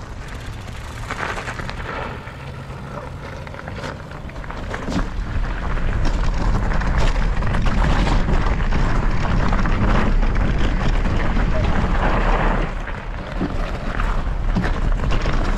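Mountain bike riding over loose gravel and dirt: tyres crunching on stones with scattered rattles, under a heavy wind rumble on the microphone that grows louder about five seconds in and dips briefly near the end.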